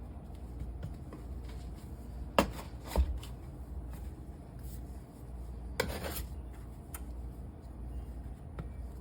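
Kitchen utensils handling layered biscuit dough on a work surface: two sharp knocks about half a second apart, then a short scrape about two-thirds of the way through.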